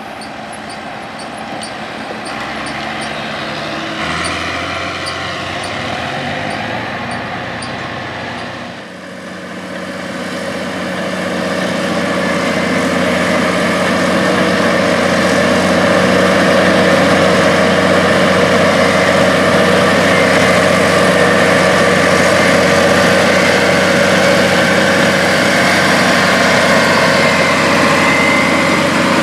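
A tractor pulling a dump trailer engine running at a distance. After a cut about nine seconds in, a Caterpillar crawler dozer's diesel engine runs loud and close under load as the dozer pushes corn silage, holding a steady note.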